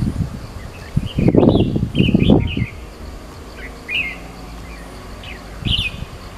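Red-whiskered bulbul calling: several short, quick, whistled chirps, some in little groups. For a second or so after about a second in, a louder low rumble runs under the calls.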